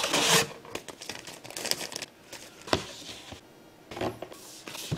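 Corrugated cardboard box being opened and handled: flaps scraping and rustling in short strokes, with a sharp knock a little under three seconds in.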